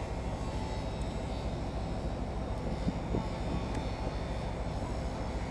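Locomotive rolling slowly past at close range, a steady low drone with no change in level.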